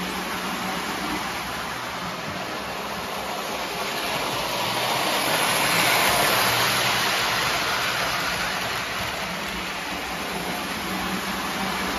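Lionel 2055 Hudson O-gauge model steam locomotive and tender running along the track. A steady rush of wheel and motor noise grows louder as the train passes close, about halfway through, then eases off.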